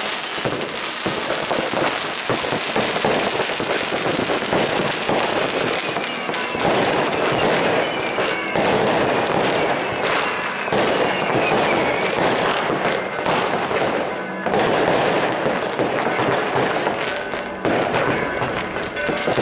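Many fireworks going off at once: a dense, continuous crackling with bangs, and a whistle sliding down in pitch at the very start.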